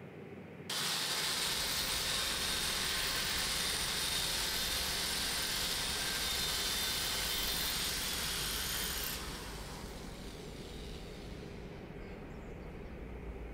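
Corded electric power drill running, boring into a wall: a loud, even, hissing whir that starts suddenly about a second in and cuts off after about eight seconds.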